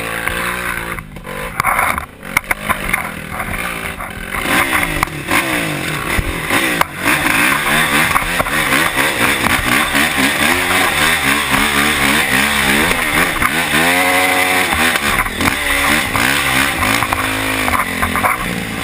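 A 450 four-stroke dirt bike engine revving up and down as the bike is ridden along a rutted dirt trail, its pitch rising and falling again and again. There are a few sharp knocks about two seconds in.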